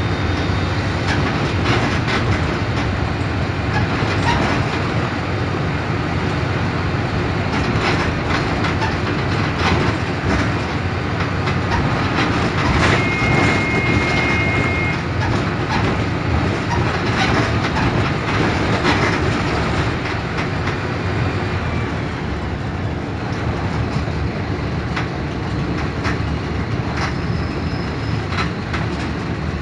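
Caio Apache Vip 4 city bus on a Mercedes-Benz OF 1721 BlueTec 5 chassis under way: diesel engine running steadily under road noise, with frequent clicks and rattles from the body. A short high whine is heard about halfway through.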